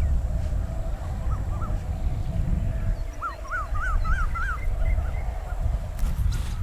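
Birds calling in short notes that rise and fall, a few scattered ones and then a quick run of about five near the middle, over a steady low rumble.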